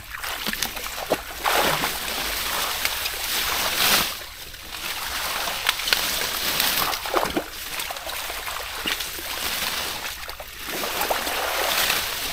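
Shallow water and mud splashing and sloshing in repeated swells as a drained pond bottom is cleared by hand.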